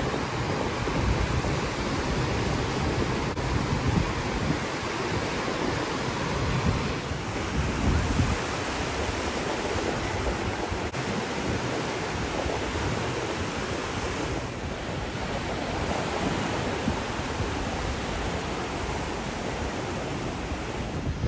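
Small waves breaking and washing in the shallows of the Gulf, a steady surf hiss, with gusts of wind buffeting the microphone.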